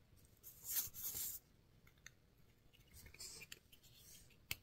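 Faint scraping and rubbing of a 3D-printed plastic sleeve being pushed onto a clear plastic jar cap, in two short spells, with a few light clicks near the end.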